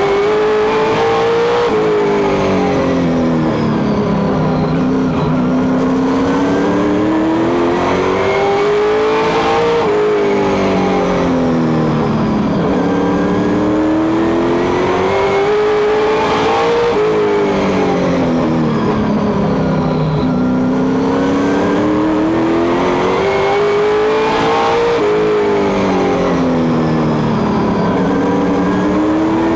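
Race car engine heard from inside the cockpit under racing load, its pitch climbing for several seconds and then dropping, over and over about every eight seconds as the car accelerates and backs off lap after lap.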